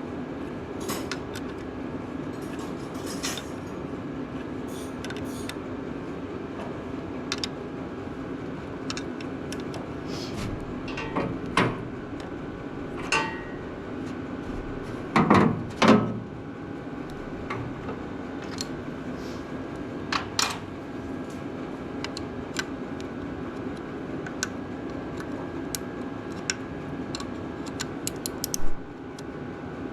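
A wrench clinks and knocks on metal while tightening bolts on a Ford 8N tractor's replacement starter, with irregular sharp clicks and a louder pair of knocks about halfway through. A steady low hum runs underneath.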